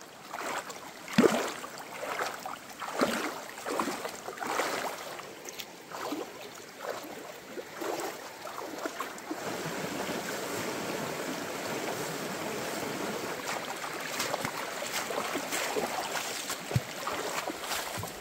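Irregular splashing in shallow river water as a stingray thrashes at a person's legs, the loudest splash about a second in. From about halfway it gives way to the steady rush of a shallow stream running over rocks, with a few more splashes.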